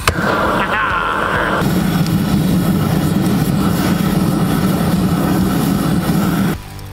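GrillGun propane torch firing a loud, steady roaring flame into lump charcoal to light a kamado grill. After about a second and a half the roar turns deeper and heavier, and it cuts off abruptly near the end.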